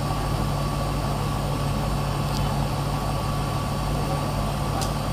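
A bicycle's rear wheel spinning on a turbo trainer under steady pedalling: a constant whirring drone with a thin steady whine, unchanging in pitch.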